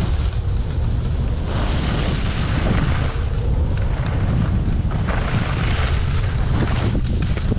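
Wind buffeting the microphone of a skier's camera during a downhill run, a steady heavy rumble. Over it, skis hiss and scrape across packed snow, swelling and fading as the skier turns.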